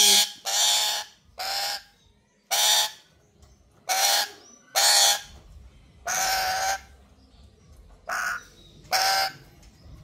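Black-capped lory giving harsh screeches, about nine in a row at roughly one a second, each short and rasping.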